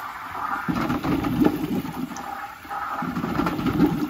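Hydronic heating zone's purge hose gushing a mix of water and air into a partly filled bucket as trapped air is purged from the zone. The rush starts about a second in, dips briefly midway, then surges again.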